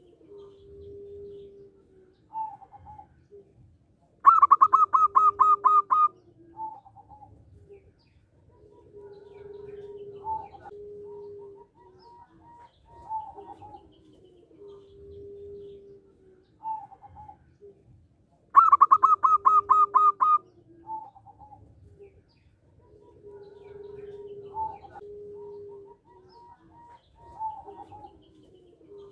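Zebra dove (perkutut) cooing in a rhythmic, repeating phrase of short higher notes and longer low coos. About four seconds in and again near the middle, two much louder, fast runs of about ten high staccato notes.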